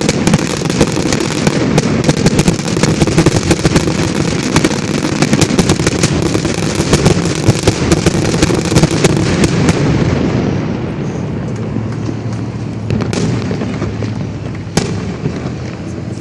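Fireworks going off in a rapid barrage of many overlapping bangs and crackles, which thins out after about ten seconds to a couple of single bangs.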